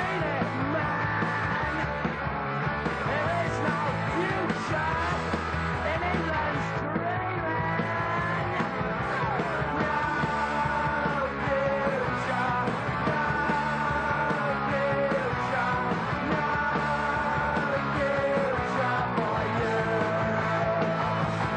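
Punk rock music: electric guitar and bass playing steadily, with a singing voice.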